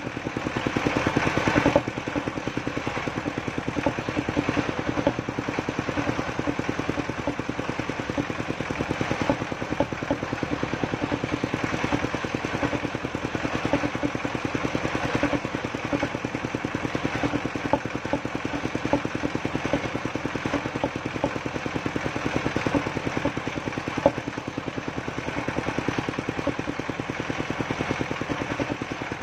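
Engine of a circular saw bench running steadily with a fast, even beat, driving the blade as a beam of albasia wood is pushed through the cut.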